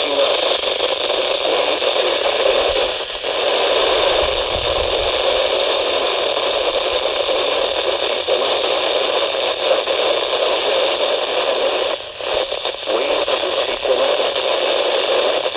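Radio receiver static: a steady, loud hiss of noise with no station signal, briefly dipping twice.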